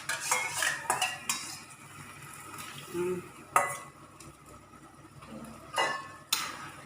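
A cooking utensil stirring food in a pan, scraping and knocking against it several times, over a light sizzle of frying.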